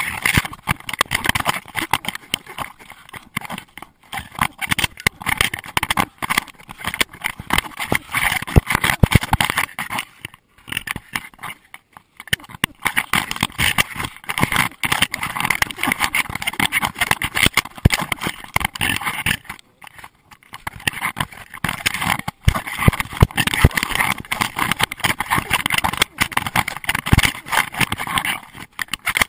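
Constant irregular knocking and rattling of a GoPro Hero2 in its waterproof housing, strapped to a running Doberman and jolted by its movement. The noise drops out briefly twice, near the middle and about two-thirds of the way in.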